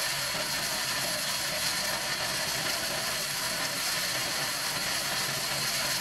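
Large vertical band sawmill running steadily as a palm log is fed toward the blade: a continuous hissing machine noise without pauses or separate knocks.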